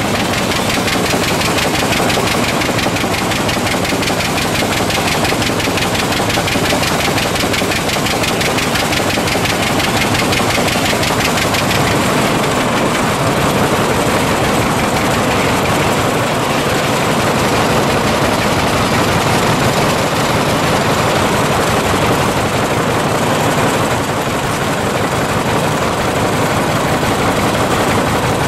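Rumely OilPull tractor engine running steadily with a fast, even beat of exhaust pulses, belt-driving a circular sawmill.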